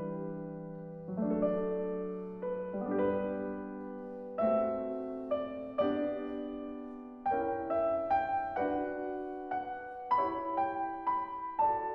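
Slow piano music: chords and single notes struck every second or so, each ringing and dying away before the next.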